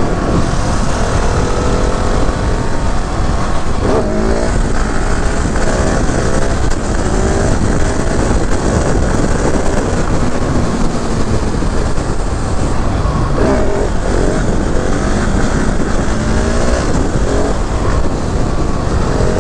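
KTM 690 SMC R's single-cylinder engine on an onboard ride, revving up and dropping back again and again as it accelerates and shifts, over a steady low rumble of wind on the microphone.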